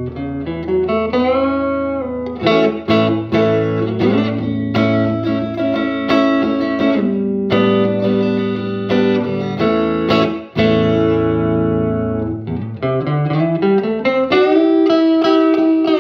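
Electric guitar (Telecaster) played through a cranked, overdriven tube amp converted from a school film projector, with two 12AX7s, 6973 power tubes and a 5Y3 rectifier: chords and sustained ringing notes with string bends, and a brief break a little past halfway.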